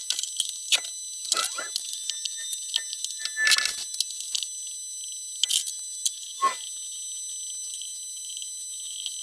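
Scattered knocks and clunks of a long wooden board being handled and set into a woodworking bench vise, the loudest about three and a half seconds in. Under them runs a steady high-pitched hiss with a faint whine.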